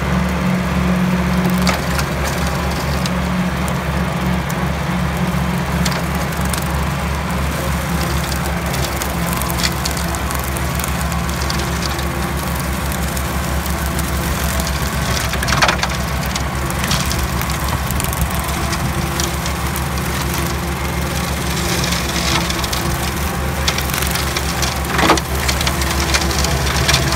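Tractor engine running steadily under load while driving a rear-mounted PTO rotary slasher mower through grass and weeds, the blades' chopping as a continuous rough noise. A few sharp cracks stand out, about halfway and near the end, as the blades strike woody debris.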